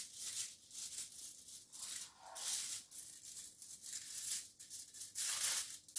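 A hand rubbing butter over a sheet of aluminium foil to grease it: repeated crinkling swishes of the foil under the palm.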